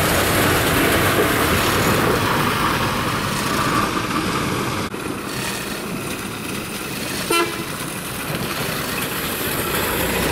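A vehicle horn gives one short toot about seven seconds in, over a steady noisy outdoor background.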